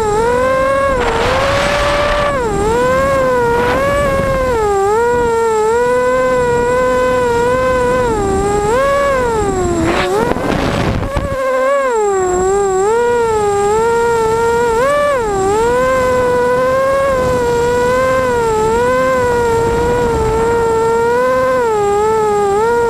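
Emax Nighthawk racing quadcopter's 2280KV brushless motors and 5040 propellers whining, the pitch swinging up and down with the throttle through hard 180° turns. A rushing noise comes in about a second in. Around ten seconds in the pitch sinks into a rough rushing burst, then the whine picks back up.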